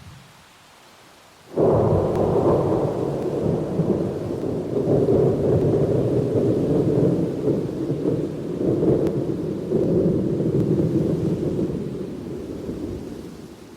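Thunder: a sudden crack about a second and a half in that rolls on as a long, deep rumble and fades away near the end, over a soft steady hiss of rain.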